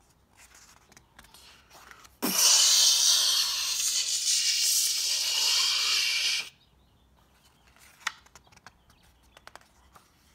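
Soft rustle of a book page being turned, then a loud spraying hiss of about four seconds that stands for a vacuum cleaner blowing out paint. The hiss cuts off suddenly and is followed by a few light taps and rustles of paper.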